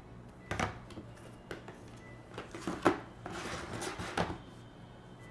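Packaging and box contents being handled: a few light knocks and rustles, the sharpest knock about three seconds in.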